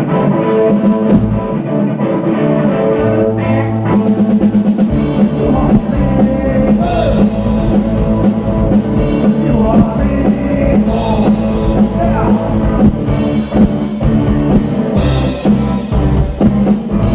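Rock band playing live, loud and continuous: drum kit and electric guitar with a keyboard, and a voice singing at times.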